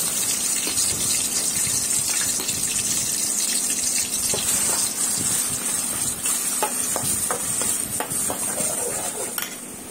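Wet ground onion, ginger and garlic paste sizzling in hot oil in an aluminium kadai as it is sautéed to cook off its raw smell, with the spatula scraping and clicking against the pan during the second half. The sizzle drops off sharply just before the end.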